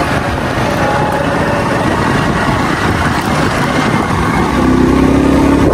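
Motorcycle engine running as the bike rides along a dirt track, with a steady low rumble; a steadier engine hum comes through near the end.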